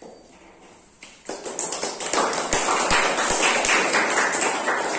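Small audience applauding: many hands clapping, starting about a second in and easing near the end.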